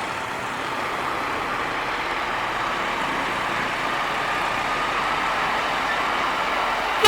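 Heavy truck on the road, its engine and tyres making a steady noise that grows slightly louder. A horn blast starts sharply at the very end.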